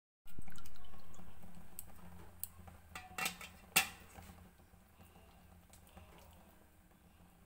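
A hand scooping soft vada batter in a stainless steel bowl: a few light clicks and taps against the steel, the sharpest about four seconds in, over a soft hiss that fades away in the first half.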